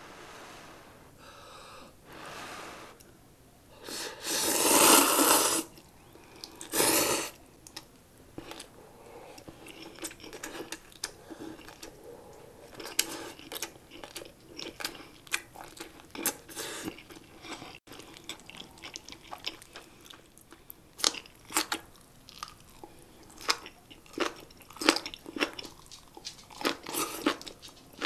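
Close-up eating sounds of instant ramen and spicy cabbage kimchi: a loud noodle slurp about four seconds in and a shorter one near seven seconds, then steady chewing with many short, crisp crunches.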